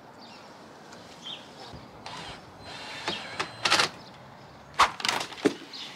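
Cordless drill running in short bursts, backing the screws out of a wooden trellis arch, with a few sharp knocks of wood being handled about four to five and a half seconds in.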